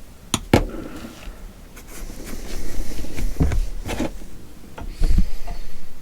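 Handling of RC crawler wheel and tire parts on a workbench: several irregular clicks and knocks with rustling in between, the heaviest knocks in the second half.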